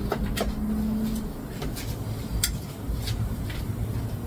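A metal spoon clinking against a small dish several times while stirring salt for a dipping sauce, over a steady low rumble. A short low hum lasts about a second near the start.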